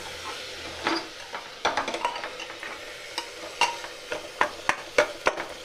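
Metal spatula stirring tomato-onion masala being sautéed in a pressure cooker, knocking and scraping against the pot in irregular clicks over a light sizzle.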